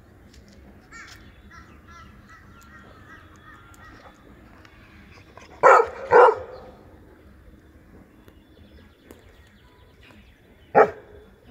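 Adult yellow Labrador retriever barking: two loud barks in quick succession about halfway through, then one more single bark near the end.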